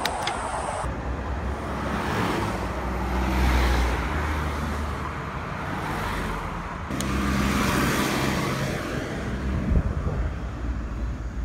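Road traffic: cars driving past close by, a steady noise of engines and tyres that swells twice as vehicles go by.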